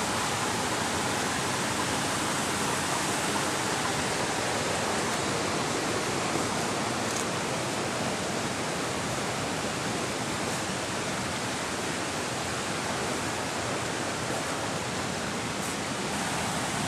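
Steady rushing of a waterfall, an even hiss of falling water that holds unchanged throughout.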